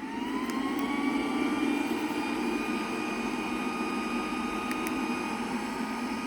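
Roomba robot vacuum running: its motor whine climbs and settles to a steady pitch in the first second or so, then holds steady.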